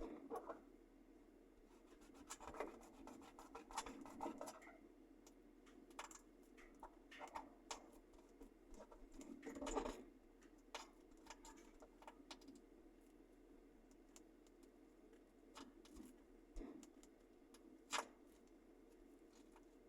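Mobile phone being handled close to its microphone: faint, scattered taps, scratches and rubs over a steady low hum. The loudest bits are a cluster of rubbing about ten seconds in and a sharp tap near the end.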